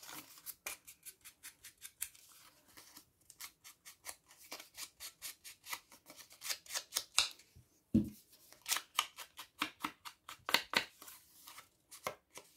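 Scissors snipping through paper in quick runs of cuts, several snips a second, with a short lull about three seconds in. A single dull knock comes about eight seconds in.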